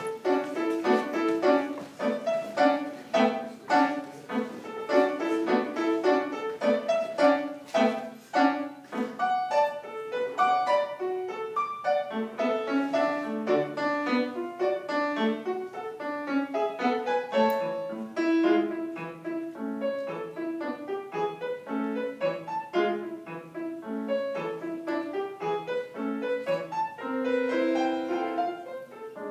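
Solo piano playing a lively 20th-century piece in a quick succession of short, detached notes.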